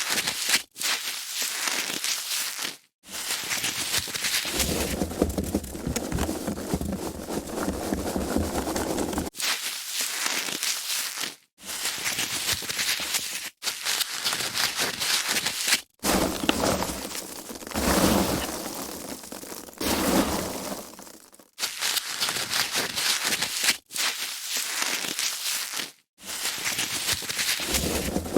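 Foam packaging being handled: dense crackling, rubbing and rustling in a run of takes, each several seconds long and broken by brief silent gaps.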